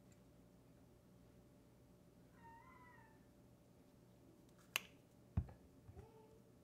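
A faint, short, wavering squeak, like a mew, lasts about a second. Near the end a sharp click and then a dull thump follow: the flip cap of a plastic honey squeeze bottle snapping shut and the bottle being set down on a table. A couple of small knocks and a brief rising squeak come last.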